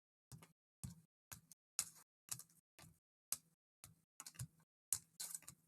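Trading cards being handled: a faint, quick run of short flicks and taps, about two a second, as cards are flipped through and set down.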